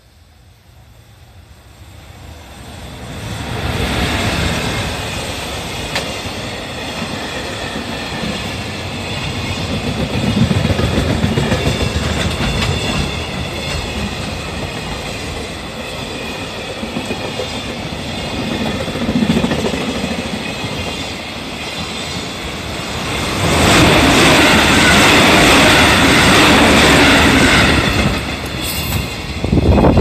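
Freight train hauled by an EF210 electric locomotive approaching and passing close by. The rumble builds over the first few seconds, then the wagon wheels keep up a steady noise on the rails. It grows louder for several seconds near the end, then drops away as the last wagons go by.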